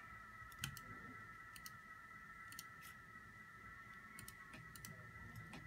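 Faint computer mouse clicks, several in quick pairs about a second apart, over a faint steady high whine.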